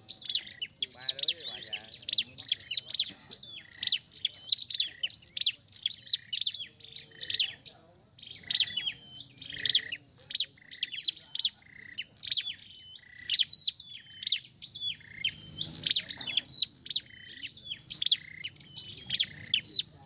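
Tailorbird (the Vietnamese 'sâu đầu đỏ') singing a fast, continuous series of short, high-pitched chirped phrases, about two a second, with only brief pauses.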